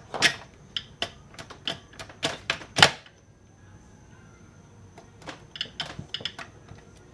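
Irregular sharp metallic clicks and knocks, a quick run of them for about three seconds, then a pause and a second cluster near the end, like hand tools and small metal parts being handled and tapped during clutch work. A faint steady high whine sits underneath.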